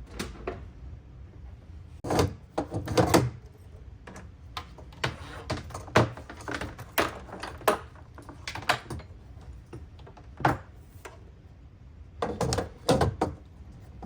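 Irregular clatter of clicks and knocks as cables and connectors are handled and fitted in a rack case. Denser clusters come about two seconds in and again near the end.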